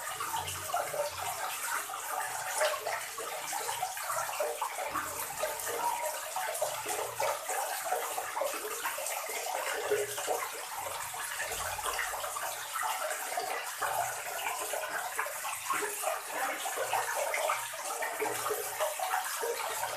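A stream of water pouring steadily into a full plastic tub, splashing without a break.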